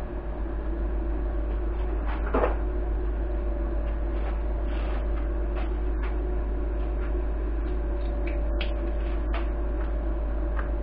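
A steady electrical or mechanical hum throughout, with a few light clicks and one sharper knock about two seconds in, from tools and connectors being handled on a forklift battery bank.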